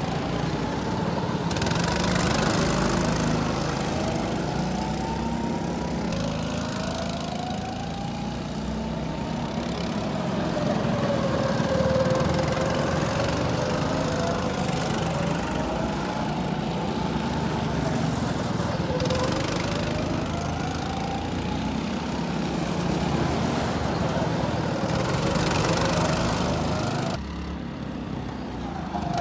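Go-kart engines running as karts lap the circuit, the engine note repeatedly rising under acceleration and falling as they slow for the corners. The sound drops away briefly near the end.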